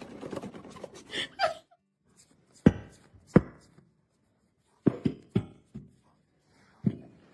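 A series of seven sharp knocks or thumps at uneven intervals, two close together and then a quicker cluster of four, with the first second and a half taken up by noisier household sound.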